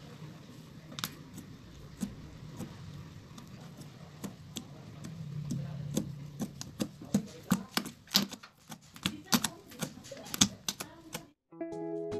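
Creamy slime being squeezed and poked by hand, giving irregular sharp clicks and pops that come thick and fast over the last few seconds. The sound cuts off suddenly near the end.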